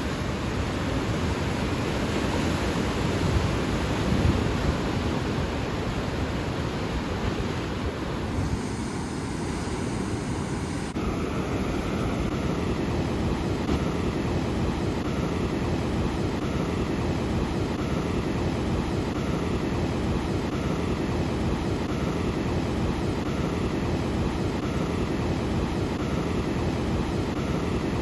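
Ocean surf washing and breaking over a rocky shoreline, a steady rush of water.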